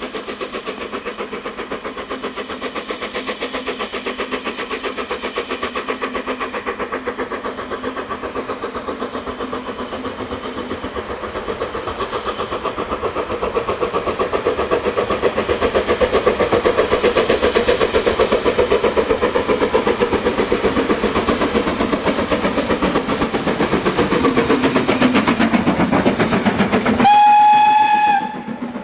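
Steam locomotive working under load, its rapid exhaust beats growing louder as it approaches and passes, with the coaches' wheels clicking over the rail joints. Near the end it gives one short whistle blast of about a second.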